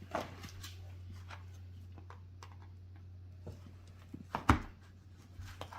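Small clicks, taps and scrapes of plastic toy tools digging in kinetic sand and knocking against containers, with one sharper knock about four and a half seconds in, over a low steady hum.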